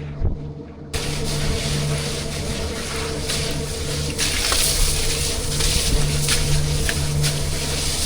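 Steady rush of running or spraying water over a low, even machine hum, starting suddenly about a second in.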